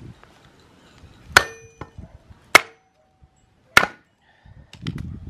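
Hammer striking the top of a log three times, about a second apart, driving it down onto the blade of a kindling splitter until the wood splits. The first blow rings briefly like metal.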